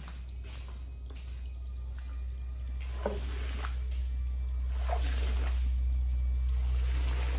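Squeegee pushed across a soaked area rug, squishing and sweeping water and suds off it in several wet strokes, over a steady low hum.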